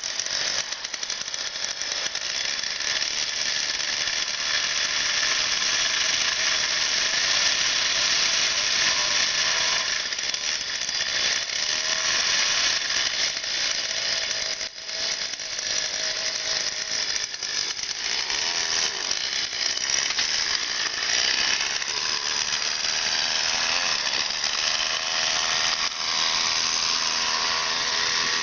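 36 cc two-stroke chainsaw engine on a motorised mountain bike, running with a loud high buzz. It drops briefly about halfway through, and its pitch rises and falls with the throttle near the end.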